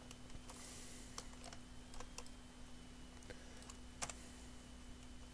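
Faint, irregular clicks of a computer mouse's buttons and scroll wheel, about ten in all, the loudest about four seconds in, over a steady low electrical hum.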